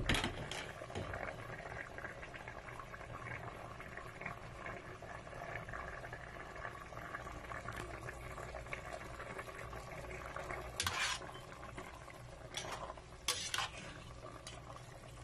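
Chicken afritada in tomato sauce simmering in a stainless steel pot, a steady bubbling, with a sharp knock at the start. From about eleven seconds in, a ladle clinks against the pot several times as the stew is stirred.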